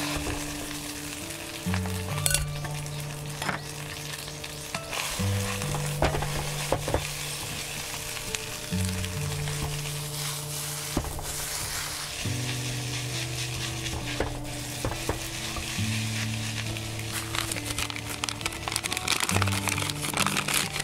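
Rice sizzling and frying in a wok over a charcoal brazier, stirred and tossed with a wooden spatula, with scattered clicks and scrapes of the spatula on the pan. Background music with a slow bass line plays along.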